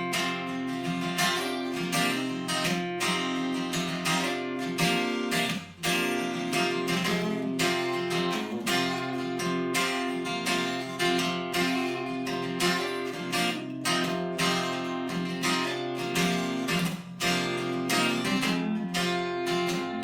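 Acoustic guitar strummed in a steady rhythm, the instrumental intro of a song before the vocals come in, with brief breaks about six and seventeen seconds in.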